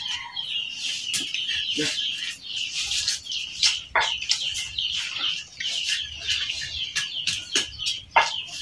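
Small birds chirping busily and chickens clucking, a steady high chatter of many quick calls.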